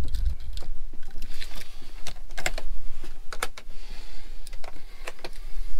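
Irregular light clicks and knocks, a few to a second, of small objects being handled inside a truck camper.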